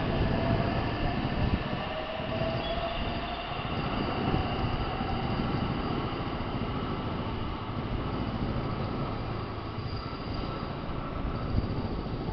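JR West 225-5000 series electric train pulling away and accelerating. Its running noise is continuous, with a faint whine rising in pitch over the first three seconds.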